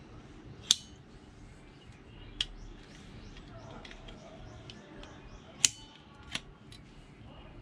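Folding pruning saw handled on its pivot, giving four sharp metallic clicks of the blade and its lock, the loudest about a second in and again near the end.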